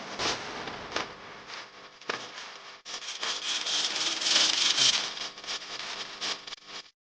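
Harsh grinding and scraping noise with many sharp hits, swelling louder in the middle and cutting off suddenly near the end: animated fight sound effects.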